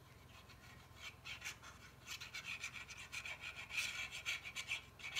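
The nozzle of a plastic glue bottle rubbing and scraping along the edges of a folded card box, with the card rustling in the hands. It is a quick, irregular scratchy sound that starts about a second in.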